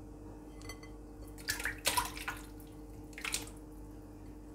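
Chunks of cow skin (kpomo) dropping into a pot of water, splashing in two short bursts, about one and a half and three seconds in.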